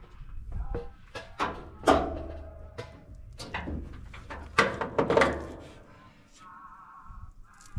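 Clicks, clunks and rattles of hands handling wiring-harness connectors and parts around an engine bay, a series of sharp knocks of varying loudness. A short warbling tone comes in about six and a half seconds in.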